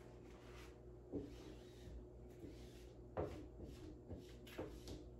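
Soft knocks and rubbing from hands pressing and smoothing wet window privacy film onto the glass pane of a door, working out water and air bubbles. A few short sounds, the loudest about three seconds in, followed by several smaller ones.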